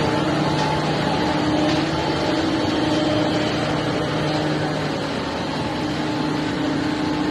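Engine-room machinery running steadily: a loud, even drone of engines and motors with a constant low hum through it.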